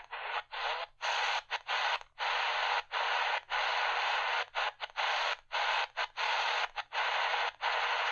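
Tecsun PL-380 portable radio's speaker hissing with medium-wave static as it is stepped up the dial, with no station coming through. The hiss cuts out briefly over and over, in short irregular gaps.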